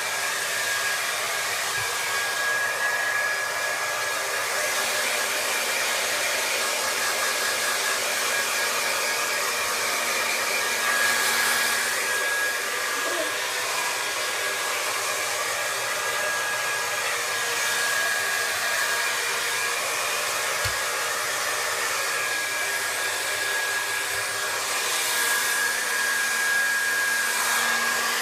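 Hair dryer running steadily: a constant rush of air with a thin high motor whine.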